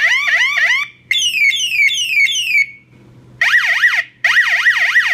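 Onedayshop police-siren bike light's electronic siren, switched through different siren tones: a fast repeating rising chirp that stops about a second in, then a run of falling sweeps, then after a short pause a rapid up-and-down yelp at about four swings a second. Really loud.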